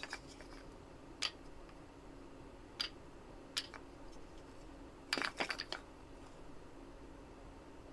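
Small sharp clicks of hard objects: three single clicks spaced a second or so apart, then a quick clatter of several taps about five seconds in, over a faint steady hum.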